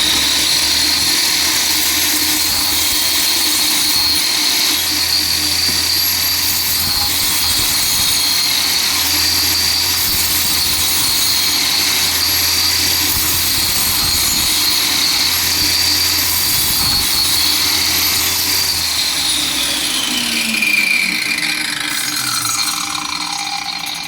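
230 mm angle grinder fitted with a wood-cutting saw blade, running at full speed with a steady high whine, then switched off about three-quarters of the way through and winding down, its pitch falling as it slows.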